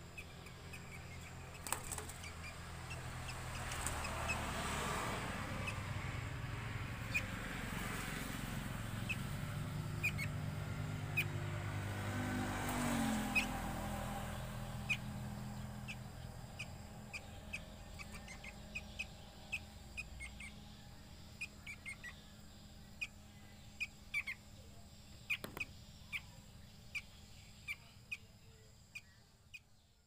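Short, sharp chirps from a young sooty-headed bulbul being hand-fed, scattered through, over a low hum that swells in the first half, rises in pitch about thirteen seconds in, and then fades.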